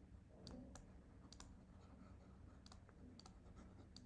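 Near silence: faint, irregular clicks from the computer input used to handwrite on a digital whiteboard, over a low steady hum.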